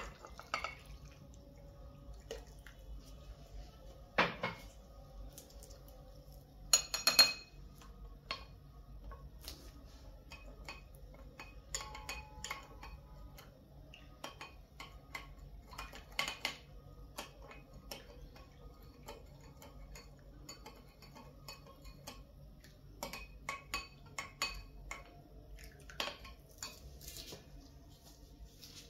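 Kitchen dishes and utensils clinking and knocking now and then, with louder clatters about four and seven seconds in.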